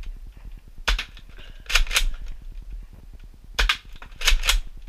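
Nerf Modulus Tri-Strike spring-powered dart blaster fired single-shot and primed between shots: sharp plastic clacks, a single one followed by a quick pair, twice over.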